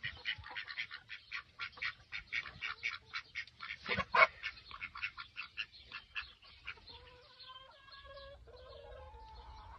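Poultry calling: a fast run of short calls, about five a second, with the loudest about four seconds in, giving way near the end to a few longer calls with a steady pitch.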